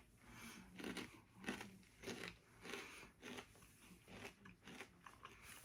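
A person chewing Herr's barbecue potato chips with the mouth close to the microphone: faint, crisp crunches repeating about twice a second.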